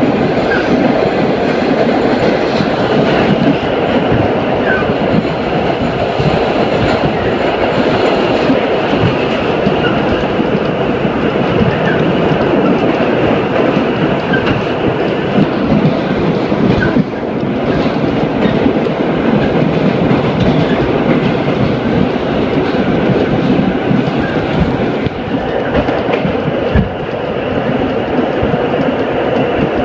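R32 subway train running through a tunnel, heard from inside the lead car: a loud, steady rumble and rattle from the wheels and car body, with irregular clacks as the wheels cross rail joints.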